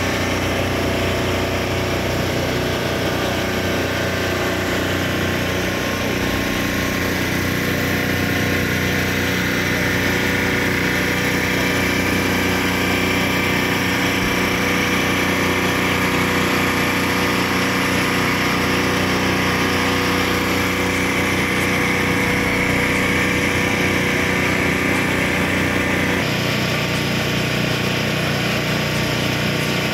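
A machine running steadily with an engine-like hum that holds the same pitch throughout and changes slightly near the end.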